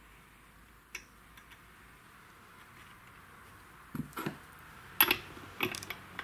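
Small metal clicks and clinks as a steel spring hook tool works a clutch spring into place on a chainsaw's centrifugal clutch: one click about a second in, then a few sharper clicks from about four seconds on, the loudest about five seconds in.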